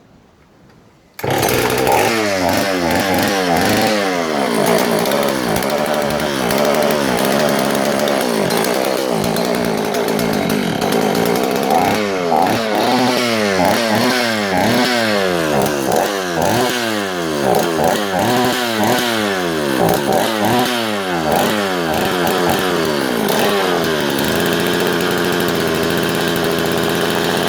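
A 1984 Husqvarna Rancher 61 two-stroke chainsaw starts running loudly about a second in. It is revved up and down again and again, most of all through the middle, and settles to a steadier run near the end.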